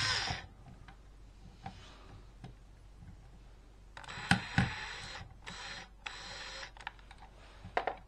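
Cordless drill-driver whining as it backs out a screw, cutting off about a third of a second in. Then light clicks and rustling of the metal screw and outlet hardware being handled, with two sharp clicks a little after halfway and two more near the end.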